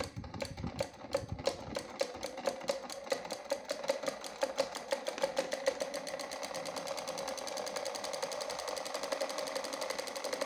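Miniature diesel engine model built from PVC pipe, running with a mechanical ticking. The ticks come about twice a second at first, then speed up around the middle into a fast, steady ticking over a steady hum.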